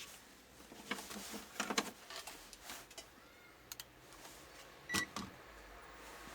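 Faint scattered clicks and rustles of hands handling test leads and the TV's circuit board, with one sharper click carrying a brief high tone about five seconds in.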